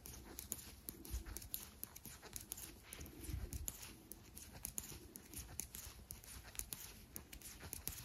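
Knitting needles clicking faintly as stitches are purled, a scatter of small irregular clicks and taps.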